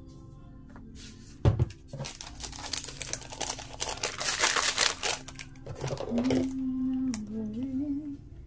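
A single sharp knock, then an instant coffee sachet being shaken and crinkled in the hands for several seconds. Near the end a brief wavering hum comes in.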